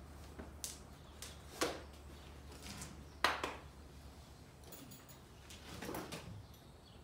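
Saddling a horse in cross-ties: a few sharp clicks and knocks of tack being handled, the loudest about three seconds in, and a rustle near the end, over a low steady hum that fades out about four seconds in.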